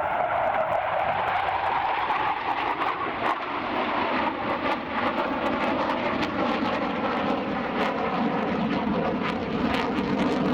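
Panavia Tornado IDS jet, with its twin RB199 turbofans, passing loud during a display, its roar falling steadily in pitch as it goes by. Sharp crackles run through the noise.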